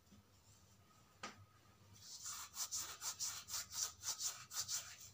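Hands rubbing palm against palm to crush ajwain (carom seeds) over a bowl of flour: a quiet, rapid rasping of about four or five strokes a second that starts about two seconds in.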